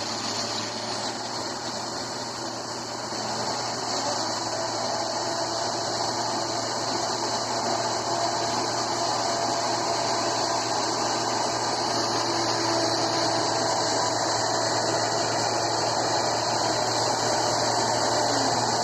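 John Deere rice combine harvester running steadily: a constant mechanical drone with a low hum and a high hiss, getting a little louder about four seconds in.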